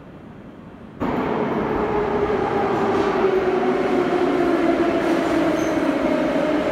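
Saint Petersburg metro train in the station: loud rumble of the train with a whine that slowly falls in pitch as it slows. The sound cuts in suddenly about a second in.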